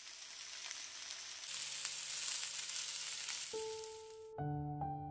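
Marinated lamb chops sizzling on a ridged grill pan, getting louder about a second and a half in and cutting off suddenly near the end. Piano music comes in just before the sizzle stops.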